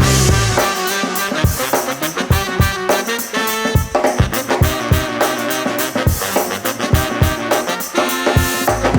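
Upbeat swing-style background music with brass and a steady drum beat.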